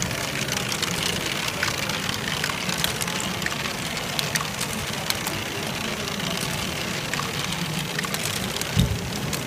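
LEGO Great Ball Contraption modules running: small plastic balls ticking and clattering through the brick ramps and turning wheel lifts, a steady patter over a low hum. A single dull thump comes near the end.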